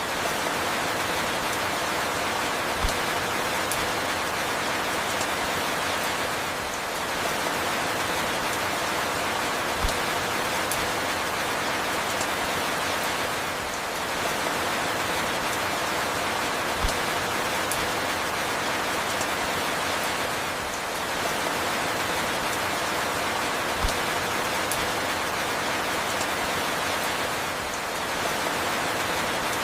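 Steady falling rain, an even hiss of many drops, with a soft low knock and a slight dip in level about every seven seconds.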